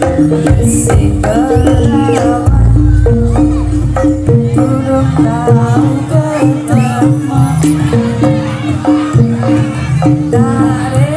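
Traditional Javanese gamelan music accompanying a barongan dance: drums and metallophones play a steady repeating pattern, with a singer's voice over it.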